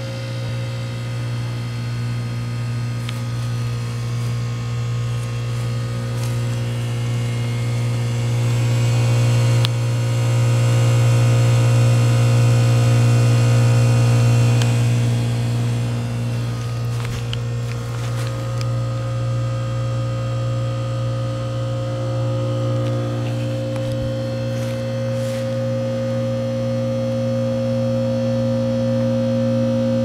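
American Standard heat pump outdoor unit in defrost mode, its outdoor fan stopped: a steady deep electrical hum from the running unit. It grows louder from about ten to fifteen seconds in, then settles, with a few light clicks later on.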